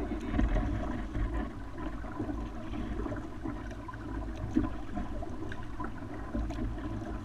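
Water sloshing and lapping against a kayak's hull, over a steady low rumble, with small scattered ticks.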